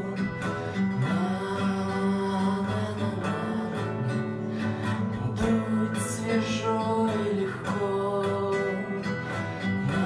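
A man singing to his own steadily strummed acoustic guitar.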